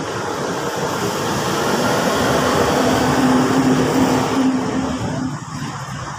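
A motor vehicle passing close by on the road: its noise swells to a peak with a steady engine note about three to four seconds in, then fades away about five seconds in.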